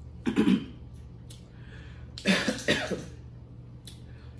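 A woman coughing with food in her mouth: one short cough about half a second in, then a louder double cough about two and a half seconds in.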